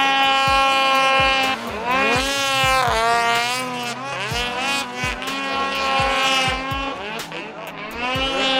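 Arctic Cat mountain snowmobile's two-stroke engine revving hard, its pitch climbing and falling repeatedly as the rider works the throttle in deep powder. A regular low beat runs underneath.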